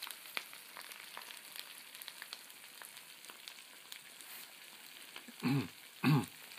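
Bacon and a fried egg sizzling in a hot cast-iron mini pan: a steady fizz of fat with frequent small crackles and pops. Near the end a person's voice makes two short murmurs over it.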